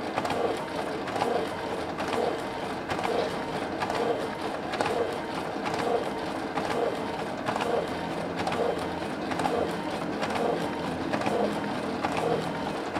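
Canon iR6000 photocopier running a long copy job, feeding sheets into the output tray in an even rhythm of nearly two pulses a second with light clicks. It runs smoothly without jamming.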